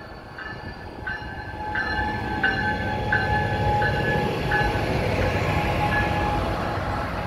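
Siemens SC-44 Charger diesel-electric locomotive going past with its bell ringing, a ding about every 0.7 s that fades out about six seconds in. Under the bell the engine and wheels make a rumble that grows louder a couple of seconds in as the locomotive and its coaches pass.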